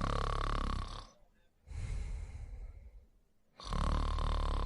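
A person snoring in their sleep, in a steady breathing rhythm: a loud snore lasting about a second, a quieter breath sound about a second and a half later, then another loud snore starting near the end.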